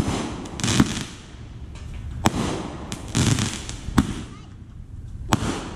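Consumer aerial fireworks bursting: about five sharp bangs at uneven intervals, a second or so apart, some of them followed by a brief hissing crackle.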